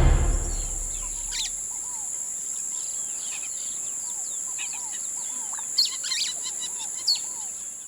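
Birds chirping and calling, short chirps and arching notes, over two steady high-pitched tones. The tail of a piece of music dies away in the first second.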